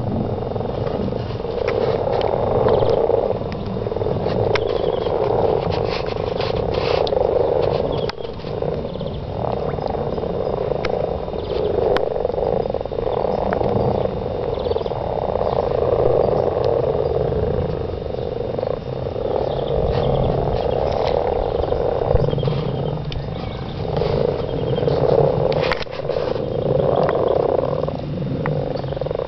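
A dense breeding chorus of many frogs croaking together while mating, a continuous mass of croaks that swells and fades.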